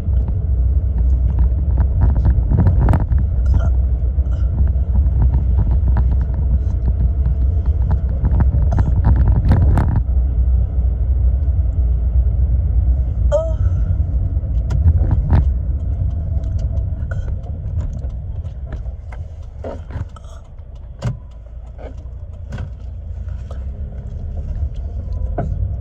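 Car cabin road noise: the steady low rumble of a car in motion, easing off about 18 seconds in as the car slows and building again near the end, with scattered small clicks and knocks.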